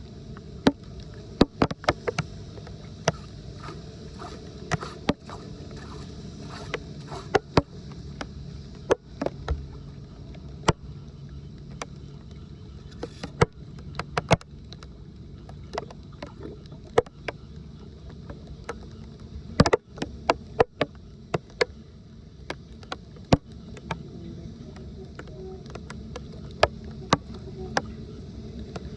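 Steady rush of water with many irregular sharp knocks and clicks scattered through it, the loudest about two-thirds of the way in.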